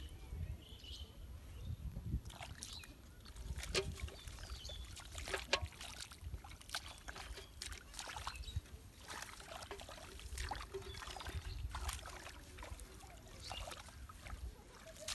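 Hands groping and splashing in shallow muddy drain water while feeling for fish: irregular small splashes and wet slaps, several a second at times.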